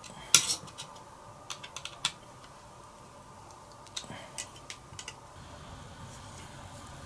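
Small kit parts and tools clicking and tapping as a circuit board is assembled by hand, with small pieces handled in a plastic parts tray. A sharp click about a third of a second in, a run of lighter clicks around two seconds, and more between four and five seconds.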